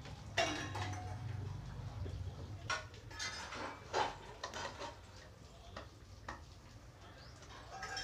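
Sharp knocks and light clatter from handling a washing machine's plastic inlet hose and its wall tap, with a low hum in the first couple of seconds.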